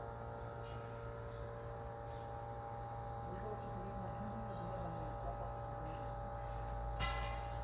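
Steady low hum with several faint steady tones above it, and a sharp click about seven seconds in.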